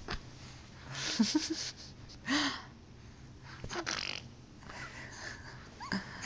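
Baby making short breathy puffs with small squeaky grunts, in bursts about a second in, a little past two seconds and near four seconds, with a rising squeak near the end. Sharp knocks of the camera being handled as the baby grabs at it.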